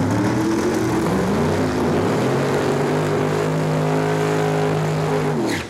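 Loud drag racing car engine running hard and steady, its pitch stepping up twice early on. Near the end the pitch falls sharply and the sound drops away suddenly.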